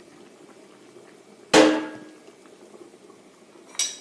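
Two metal clanks of a cooking utensil or lid on a metal cooking pot: a loud ringing one about a second and a half in and a lighter one near the end, over the low bubbling of the curry simmering.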